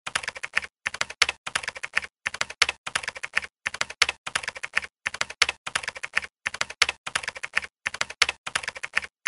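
Computer keyboard typing sound effect: rapid keystrokes in short runs, broken by brief pauses.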